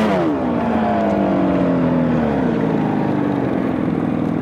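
Snowmobile engine running. Its pitch falls in the first half second as the throttle eases off, holds steady, then drops again about two and a half seconds in.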